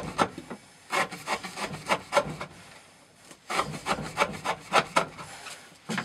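N690 steel knife blade sawing back and forth through rope in three bouts of quick scraping strokes. The edge is dull and cuts only with great difficulty.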